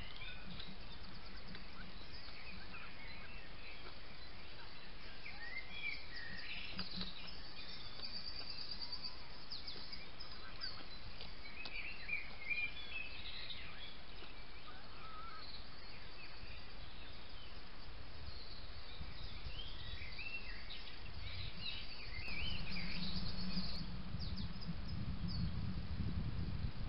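Wild birds singing at first light: a scatter of short chirps, trills and whistled phrases from several birds, over a steady background hiss. About two thirds of the way through, a low rumble swells for roughly two seconds.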